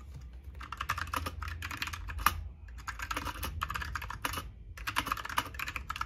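Fast typing on a 60% mechanical keyboard with brown switches: rapid runs of key clacks, starting about half a second in and pausing briefly twice.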